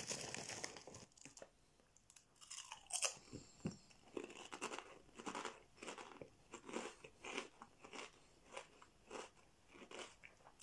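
Close chewing of a mouthful of Crunchchips spare ribs flavour crisps: a loud crunch about three seconds in, then steady crunchy chewing at about two or three chews a second.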